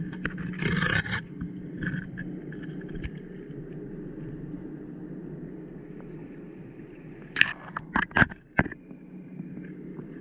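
Handling noise from an underwater GoPro being hauled up on its line: a steady muffled rumble, a short rushing burst about a second in, and a quick run of sharp knocks from the camera housing about seven to eight and a half seconds in.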